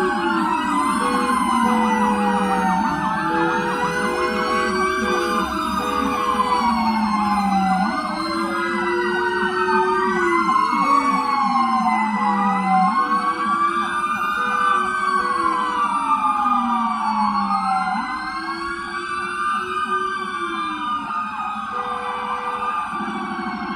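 Several emergency-vehicle sirens wailing at once, their pitches rising and falling across each other, with a deeper siren repeatedly sliding slowly down and rising again. A horn sounds in short blasts on and off throughout.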